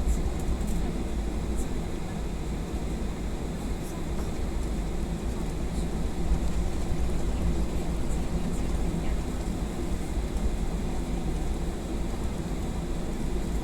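Cabin noise of an airliner taxiing on the ground: a steady low rumble from the engines and the rolling aircraft, with a faint thin high tone above it.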